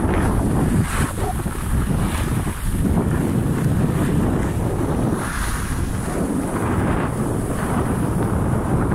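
Wind rushing over a handheld smartphone's microphone while skiing downhill, with the skis swishing over snow in swells every couple of seconds.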